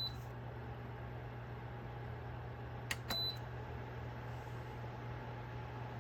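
Senville ceramic space heater running with a steady fan hum, its control panel giving two short high beeps, one right at the start and one about three seconds in, each just after a click of a button press.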